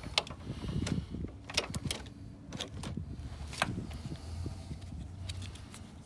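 Rustling and rubbing of a jacket sleeve against the camera, with scattered sharp plastic clicks and taps as a wiring connector is pushed and wiggled into the fuse box, not seating easily.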